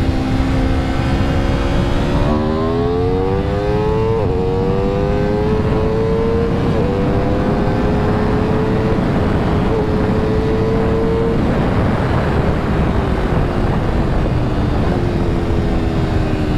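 Aprilia RSV4 RR's V4 engine under hard acceleration, its note climbing in pitch with gear changes about four and seven seconds in, over heavy wind rush at high speed. About eleven seconds in the engine note fades under the wind, then comes back lower and falling near the end.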